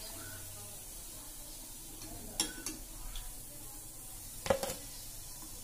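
A few light knocks and clatters of fried chicken cutlets and a utensil being set down on a plastic plate, in two pairs about two seconds apart, over a faint steady hiss.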